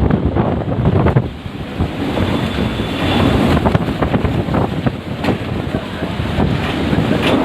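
Strong storm wind gusting and buffeting the microphone, over heavy rain; the rush dips briefly about a second in, then builds again.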